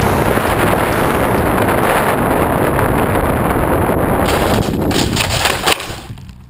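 Wind rushing over the microphone of an RC plane's onboard camera as the plane glides in low over snow. From about four seconds in come a run of scraping bumps as it touches down and skids through the snow, and the noise dies away as it stops.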